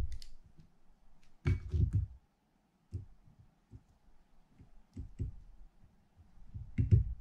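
Small scattered clicks and taps of a small screwdriver tip and fingers working on a fishing reel's brass side plate while the dog springs are fitted, with a few dull knocks against the bench. The loudest knock comes near the end.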